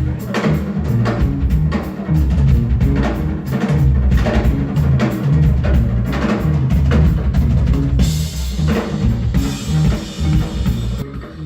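Live band music with the drum kit to the fore: a steady beat of drum hits over a strong low bass line, then a cymbal wash from about eight seconds in that stops shortly before the end.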